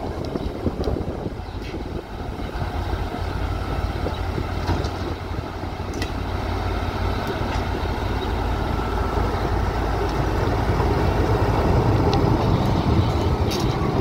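HAS-class diesel shunting locomotive's engine running as it rolls slowly past, growing louder as it nears, with a few sharp clicks.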